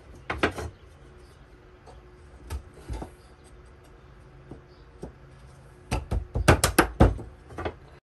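Wooden beehive-frame top bars clacking against each other and the slotted wooden assembly jig as they are pushed into place. A few scattered knocks come first, then a quick run of sharp, louder clacks about six seconds in.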